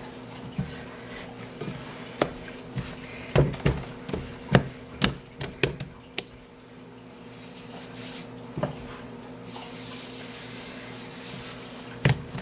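A ball of stiff dough being kneaded and patted by hand on a countertop: irregular dull thumps and slaps, thickest in the middle, with a couple more near the end. A steady low hum runs underneath.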